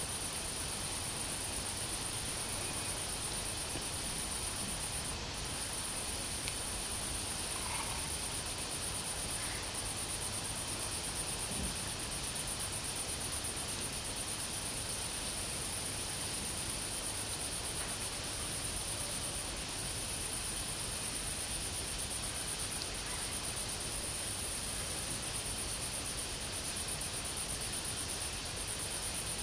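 Crickets chirring in one steady high-pitched trill, over a faint even hiss.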